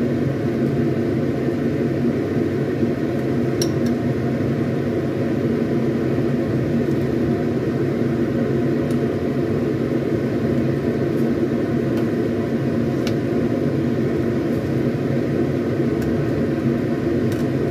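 Steady machine hum, like a kitchen appliance's motor, with a few faint clinks of a metal ladle against the steel pot and ceramic bowl as the soup is served.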